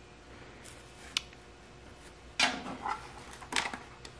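A plastic watercolour palette box being handled on a tabletop: a few light clicks, then a short scraping rattle about two and a half seconds in and two sharp clicks near the end.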